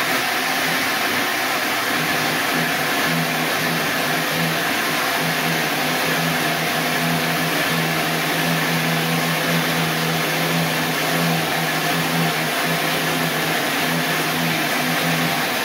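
Electric blender running steadily at top speed, grinding garlic cloves with olive oil into one smooth mixture; a constant motor hum under a loud whirring.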